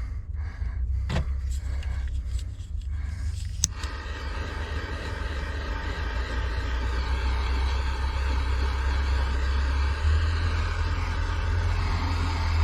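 A click about three and a half seconds in, then a heat gun's fan and heater blowing steadily with a hum, shrinking heat-shrink tubing over freshly crimped cable eyelets. A low rumble runs underneath throughout.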